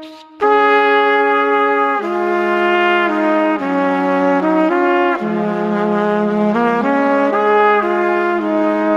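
Background music: a slow melody of held notes changing every half second to a second, with a short break just after the start.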